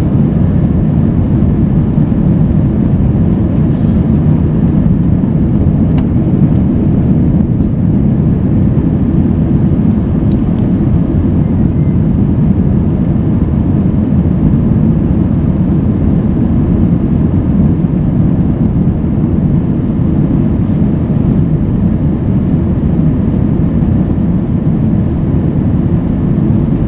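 Airliner cabin noise in flight: a loud, steady low roar of the jet engines and rushing air heard from inside the passenger cabin, with no changes.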